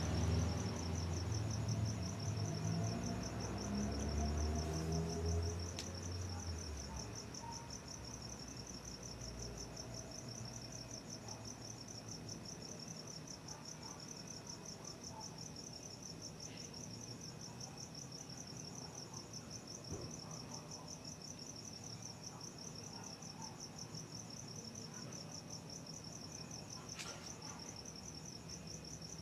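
Cricket chirping in a continuous, evenly pulsed high trill. During the first six or seven seconds a louder low hum, rising slightly in pitch, sits under it and then fades away.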